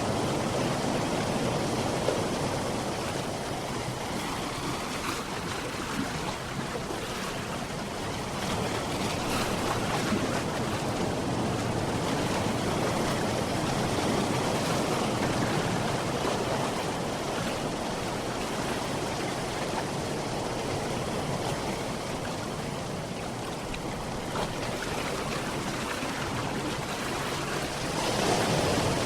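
Sea waves washing in a steady wash that swells and eases slowly, growing louder near the end.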